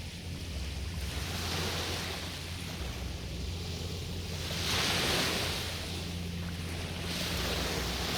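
Small waves on the shore of Tokyo Bay, washing in and drawing back and swelling every few seconds, over a steady low rumble.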